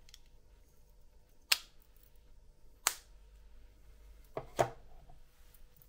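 Plastic wireless-earbud charging case being handled, giving four sharp snaps as its lid is clicked shut and open: one about a second and a half in, another a second or so later, and a quick pair near the end.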